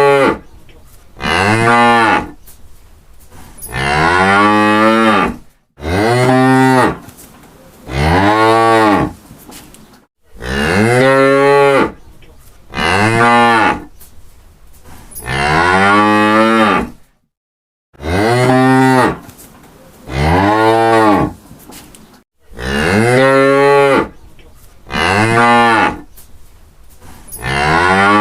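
Cows mooing over and over, a long low moo about every two seconds, each one rising and then falling in pitch.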